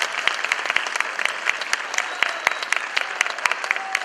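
Audience applauding: a steady mass of clapping from many hands.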